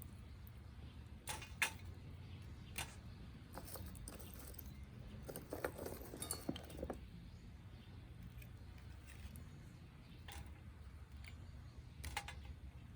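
Scattered light metallic clinks and clicks from metal gear being handled, in short clusters a few seconds apart, over a low steady rumble.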